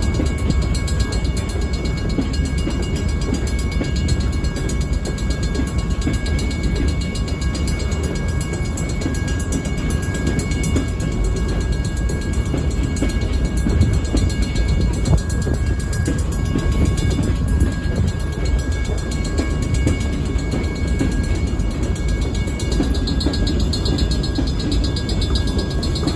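Freight cars (covered hoppers, then gondolas) rolling steadily past a grade crossing: a continuous low rumble of wheels on rail, with thin steady high tones ringing faintly above it.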